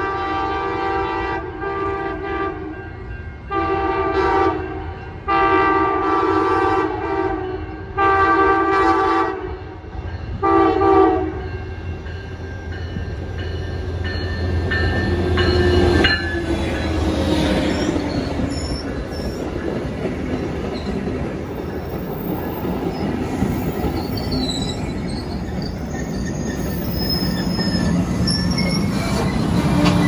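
Amtrak passenger train's locomotive horn sounding a chord in about five blasts over the first eleven seconds, the last one short, as the train approaches. The train then rolls past with a heavy rumble and high wheel squeal as it slows into the station.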